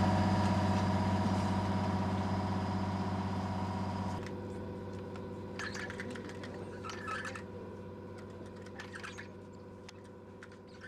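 Small motorboat's engine running steadily with an even hum. It drops sharply in level about four seconds in and keeps fading, and a few brief rustling, clattering noises come later.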